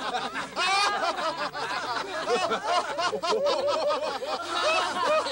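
Several voices laughing together, a mix of chuckles and snickers: mocking laughter at someone.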